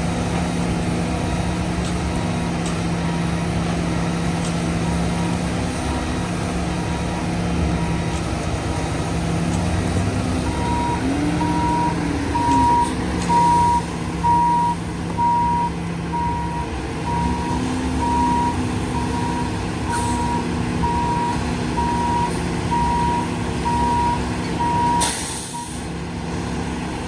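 Concrete mixer truck's diesel engine running, its pitch shifting with the throttle. From about ten seconds in, its reverse alarm beeps steadily about once a second as it backs up. Near the end the beeping stops and an air brake lets out a short sharp hiss.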